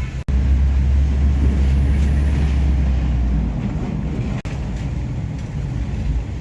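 Vehicle driving: a steady low engine and road rumble, heaviest for the first few seconds, that cuts out for an instant twice.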